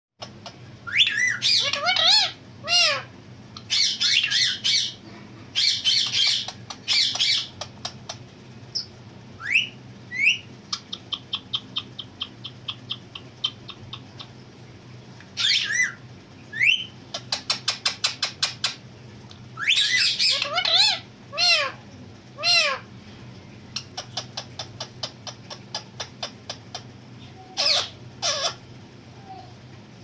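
Rose-ringed parakeet (Indian ringneck) calling in several loud bursts of arching, squawky calls that mimic a cat's meow, with short rising whistles and runs of rapid clicking chatter between them.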